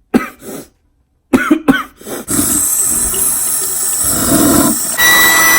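A man coughing and sputtering from a spoonful of black pepper in his mouth, in short vocal bursts with a brief pause between them. A steady rushing noise follows, and a steady high tone comes in near the end.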